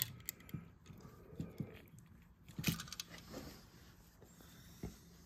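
Wall light switch handled in the hands while a stranded wire is fitted to its terminal: a few scattered small clicks and metallic rattles, the loudest a little under three seconds in.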